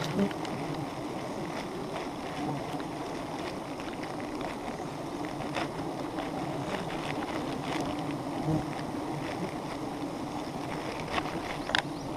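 Wild honeybee colony buzzing in a steady drone as the comb is cut open, with a few scattered light clicks and taps.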